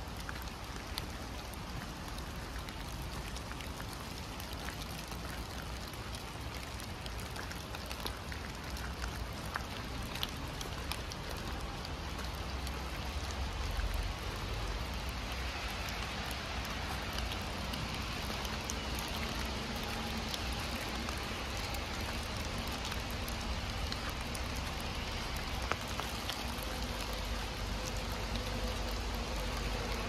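Heavy rain falling in a forest: a steady hiss with many separate drops tapping close by. A faint low hum comes in about halfway through.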